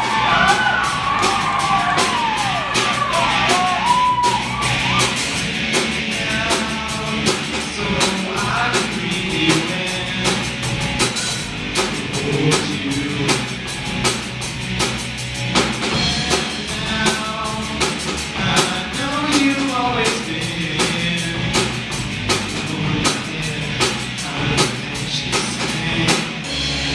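Live rock band playing: a drum kit keeping a steady, busy beat under electric guitars, with a melodic lead line moving over it.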